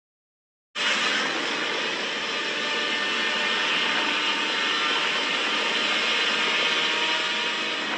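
Dead silence, then a steady rushing noise like static or a roar that cuts in abruptly about a second in and holds evenly.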